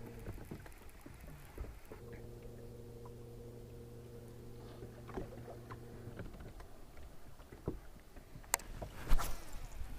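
A bass boat's electric trolling motor hums steadily. It cuts out briefly near the start, runs again for about four seconds and then stops. Light clicks and knocks on the boat follow, with two sharp knocks near the end.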